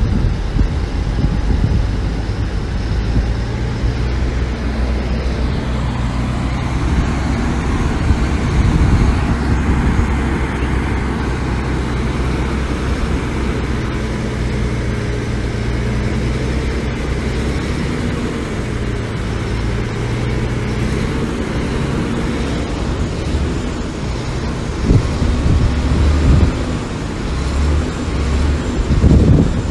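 Diesel engine of heavy earthmoving equipment running steadily with a low drone, working a little harder in short surges near the end.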